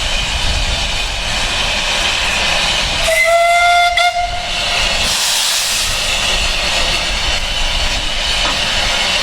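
Steam locomotive Dunlop No6 hissing steam steadily, with one whistle blast lasting about a second near the middle. A louder rush of escaping steam follows shortly after.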